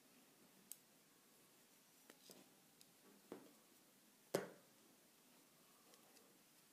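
Faint clicks and taps of knitting needles knocking together as stitches are worked, a handful scattered through the quiet, the loudest about four and a half seconds in.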